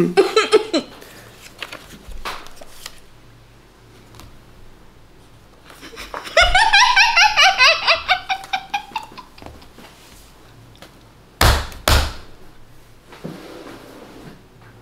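High-pitched, pulsing laughter held back through a mouthful of water, lasting about three seconds in the middle, with a shorter burst of laughter at the very start. Two sharp thumps about half a second apart follow the laugh.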